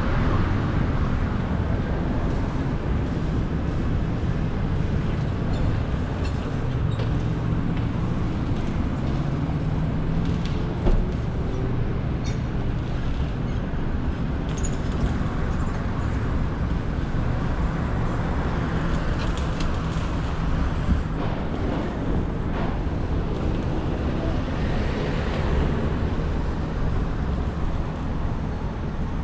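Steady road and traffic noise from a moving car in city traffic: tyre and air rush with the hum of nearby vehicle engines, and a couple of brief knocks.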